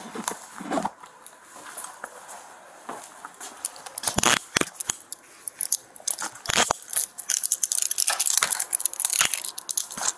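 Steel handcuffs handled in the hands: sharp metal clicks of the ratchet and chain, a few single clicks at first, then a quick run of clicks from about four seconds in.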